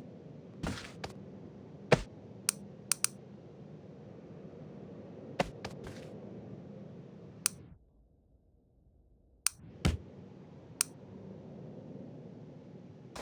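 Scattered sharp clicks and knocks, about a dozen, irregularly spaced, over a steady low hum. The hum cuts out for about a second and a half past the middle, then comes back.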